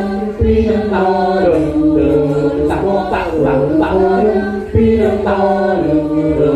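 A group of voices chanting together in long held notes that step up and down in phrases, accompanying a wayang orang dance. A new phrase comes in with a sharp low thump about half a second in and again just before five seconds.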